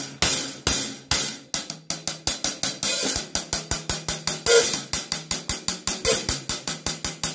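Paiste Alpha 14-inch Rock hi-hat cymbals (B8 bronze) being played: a few spaced strikes, then a quick even run of about six strikes a second from about two seconds in. The hi-hats have a rock sound.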